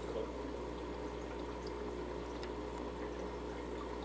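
Aquarium filter running: a steady trickle and splash of water with a low constant hum.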